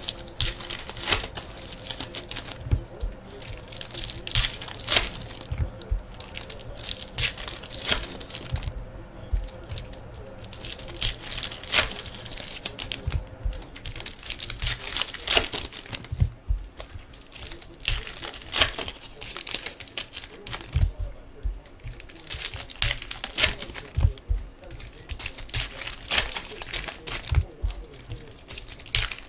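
Foil wrappers of 2015 Donruss Soccer trading-card packs crinkling and tearing as the packs are ripped open one after another. The sound is a run of irregular crackles.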